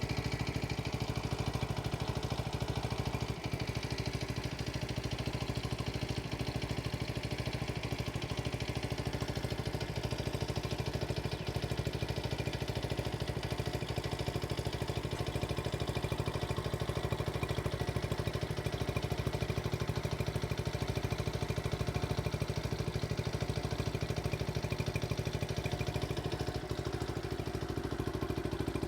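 Honda CT70H minibike's small single-cylinder four-stroke engine idling steadily at an even, unchanging speed.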